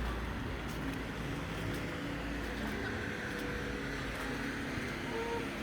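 Steady low outdoor rumble by open water, with a short faint bird call near the end.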